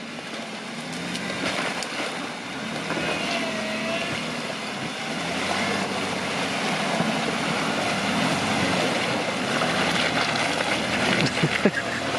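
Jeep Wrangler engine running at low speed as it crawls through a water-filled mud rut, tyres splashing through water and mud, growing louder as it approaches. A few sharp cracks near the end.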